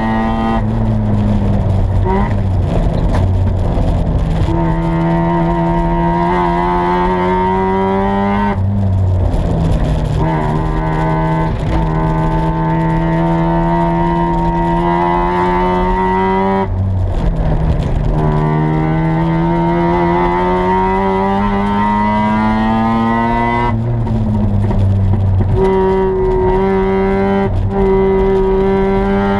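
A 1986 Mazda RX-7's 13B rotary engine running hard, heard from inside the race car's cabin. Its note climbs slowly in pitch for several seconds at a time, falling back briefly about every eight seconds before climbing again.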